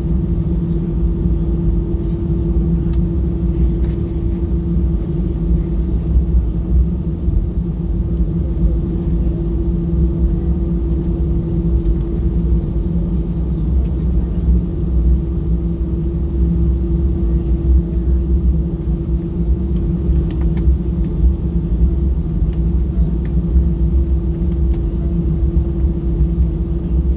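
Steady cabin rumble and hum inside an Airbus A320-214 taxiing after landing, its engines at idle.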